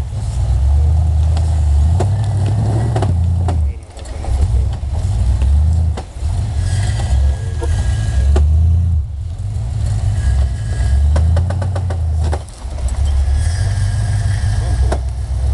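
Jeep Wagoneer engine revving hard in repeated bursts, dropping off the throttle four times, as the truck churns in mud hung up on a stump.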